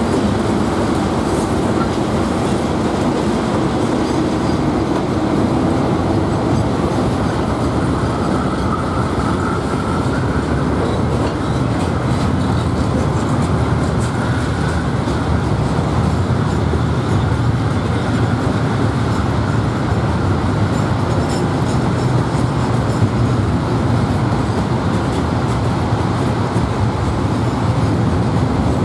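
Freight train of log-laden wagons rolling steadily past, with continuous wheel-on-rail noise and clickety-clack from the wagon wheels.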